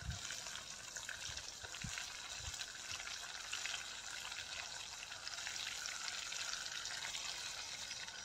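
Wet spice paste and browned onions sizzling in hot desi ghee in a frying pan, a steady frying hiss just after the masala has gone in. A few soft low thuds sound in the first few seconds.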